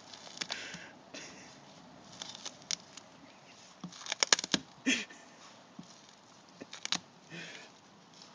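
A dog tearing at a car's rubbery Plasti Dip coating with its mouth: scattered sharp clicks and short rasping noises, loudest in a quick cluster of clicks about four seconds in.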